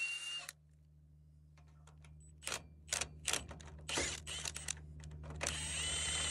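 A power tool spins a socket on an extension to loosen the apron chain's tensioner nut and release tension on the chain. It runs with a whining motor at the very start and again for about a second near the end, with scattered metal clicks of the socket and extension in between.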